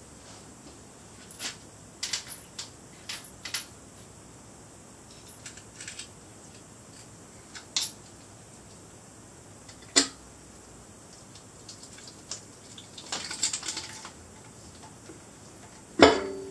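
Scattered metallic clicks and clinks of hand tools and bolts as the intake manifold is unbolted from a 454 big-block engine, with a short rattling patch late on and one louder knock near the end.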